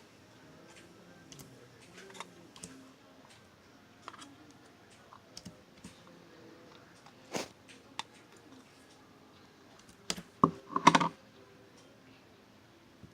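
Scattered light clicks and taps, with a louder cluster of sharp knocks about ten to eleven seconds in.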